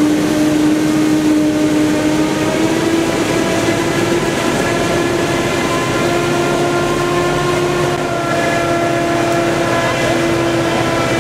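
Claas Jaguar self-propelled forage harvester running under load as it chops standing maize, together with the tractor pulling the silage trailer alongside. A loud, steady machine whine over a noisy rumble drifts slightly higher in pitch.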